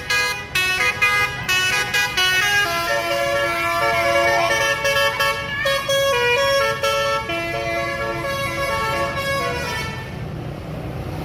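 Bus 'telolet' Basuri multi-tone horn playing a tune. It starts with a quick run of short notes, then moves to longer held notes, and stops about ten seconds in.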